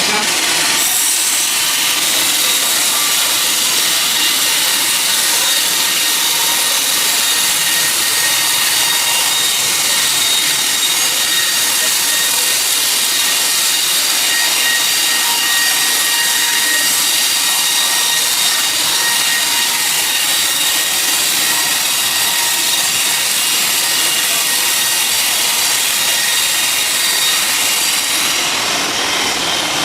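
Sawmill saw cutting steadily through a teak log: a loud, continuous high-pitched hiss of blade in wood, with a faint steady whine from the machine.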